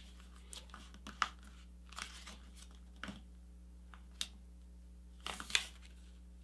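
A sheet of printer paper being folded by hand: scattered crinkles and rustles as the edges are lined up and the crease is pressed down, the sharpest about a second in and again about five and a half seconds in.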